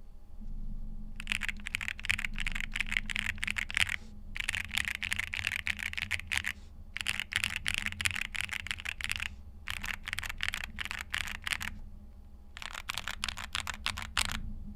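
Fast typing on a KBDfans Taco 75 mechanical keyboard with linear Gateron Pro 3.0 Yellow switches and PBT keycaps: rapid keystroke clatter in five runs of two to three seconds each, with short pauses between them.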